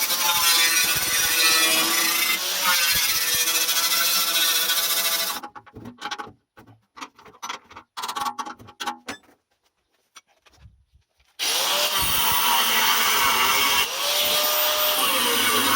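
A handheld power tool running under load with a steady motor whine. It stops about five seconds in, leaving only a few clicks and knocks for around six seconds, then starts again, and its pitch slides down near the end.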